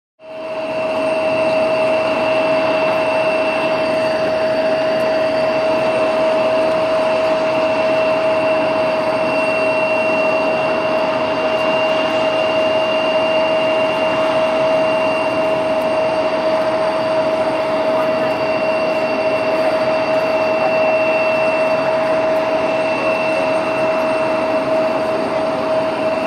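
Boeing 747-400 freighter's four turbofan engines at takeoff thrust during the takeoff roll: a loud, steady jet roar with a steady high whine over it. It fades in over the first second.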